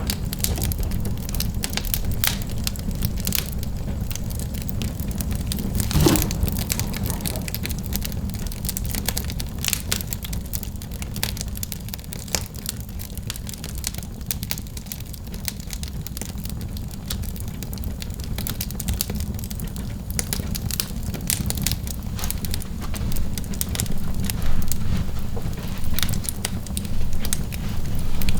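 Wood fire in a fireplace crackling, with frequent sharp pops over a steady low rumble; one louder pop about six seconds in.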